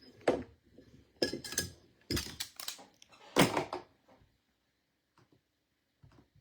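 A handful of knocks and thuds from objects being handled and set down on a tabletop over the first four seconds, the loudest about three and a half seconds in, then a couple of faint clicks.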